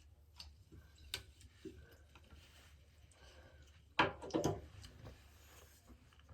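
Faint handling noise: small clicks and knocks over a low steady hum, with one louder knock and clatter about four seconds in.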